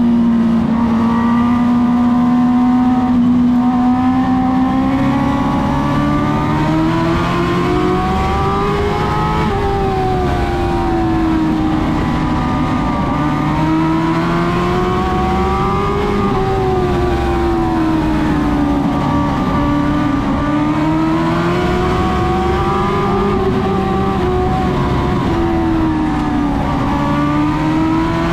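Dwarf race car engine running hard, holding a steady pitch for the first few seconds, then rising and falling in a regular cycle every six or seven seconds, as when accelerating down the straights and easing off for the turns of an oval.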